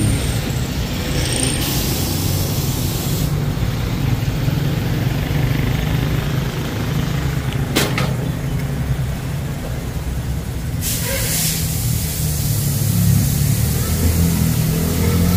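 Compressed air hissing in two long stretches, the first about two seconds in and the second from about eleven seconds in, over a steady low machine hum, with one sharp click near the middle.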